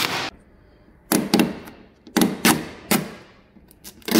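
An old vinyl decal being peeled off a boat's fibreglass hull by hand, ripping away in a series of short tugs about a second apart; the old vinyl is hard and doesn't come off easy.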